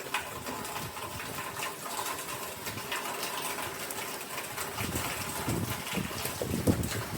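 Heavy hurricane rain pouring down and splashing, a steady hiss full of fine patter. A lower rumble joins in over the last couple of seconds.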